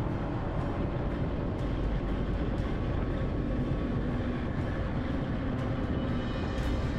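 Motor scooter riding along at road speed: a steady rush of wind and road noise on the camera microphone, with the engine's low drone underneath.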